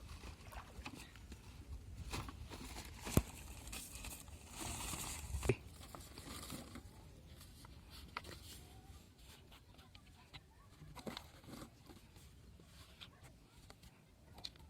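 Faint handling sounds: scattered clicks and knocks, with a short rustle about four to five seconds in.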